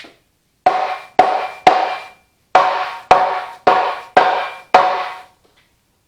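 Eight hard hammer blows on steel, three then, after a short pause, five more, each ringing out briefly, as a tractor frame rail is knocked loose.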